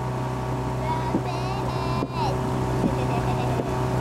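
Motor launch engine running at a steady speed, a constant low hum heard from on board while following a rowing shell.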